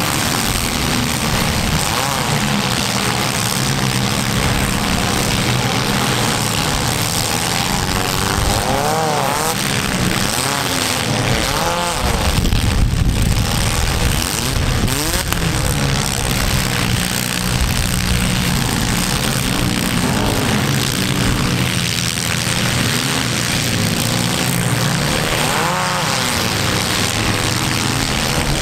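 Several small-car demolition derby engines running hard together, revving up and down again and again.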